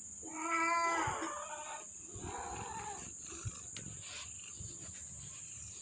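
A cat meowing: one drawn-out meow about a second long near the start, then a fainter, shorter meow around two seconds in.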